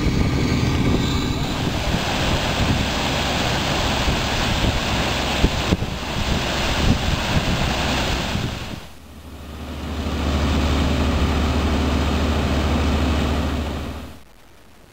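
Steady rushing roar of water-and-sand slurry gushing from a cutter suction dredger's discharge pipe. It dips briefly about nine seconds in, returns with a heavy deep rumble under it, then falls away sharply shortly before the end.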